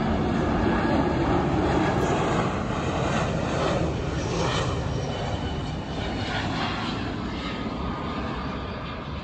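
Jet engines of an easyJet Airbus narrow-body airliner on final approach: a steady rushing noise with a faint whine on top, slowly fading in the second half as it passes.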